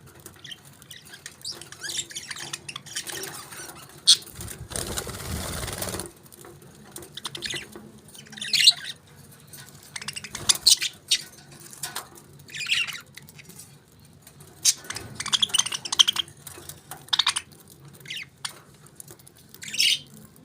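Pet parakeets chirping in short, high calls scattered throughout, with a burst of rustling about four seconds in that lasts nearly two seconds.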